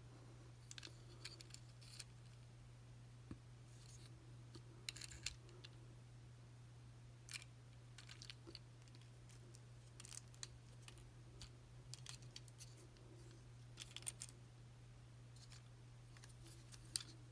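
Light clicks and taps of hard plastic as a Transformers Studio Series Dino action figure and its small black blade accessory are handled and fitted, coming in scattered little clusters, with one sharper click near the end. A faint steady hum runs underneath.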